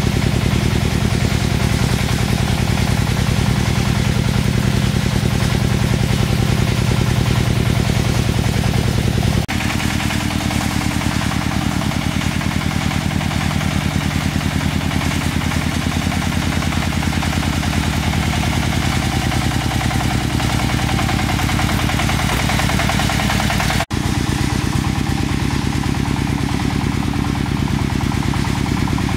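An engine running steadily at an even speed. The sound breaks off and shifts abruptly twice, about a third of the way in and again near the end, each time carrying on as a similar steady engine hum.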